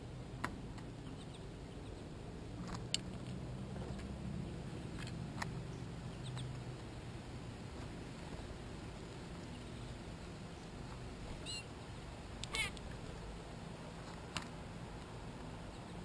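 A few short, high bird chirps and sharp clicks over a steady low outdoor hum, from small birds feeding at a seed feeder.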